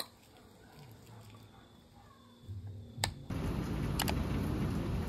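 A few faint clicks over quiet room sound. Then, a little over three seconds in, steady heavy rain starts abruptly and becomes the loudest sound.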